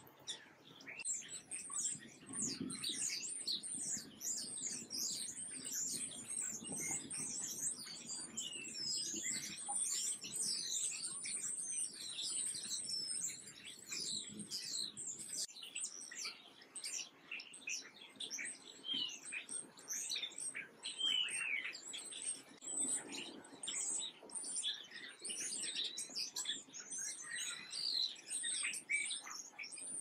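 A flock of house sparrows chirping: many short, overlapping chirps that go on without a break.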